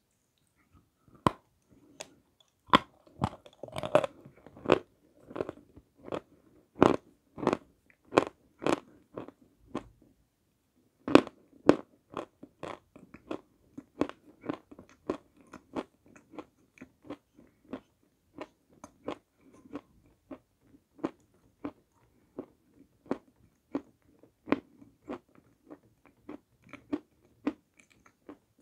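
Close-up crunching of a dry block of edible white clay being bitten and chewed: crisp crunches about twice a second. They are loudest in the first ten seconds, pause briefly, then go on more lightly.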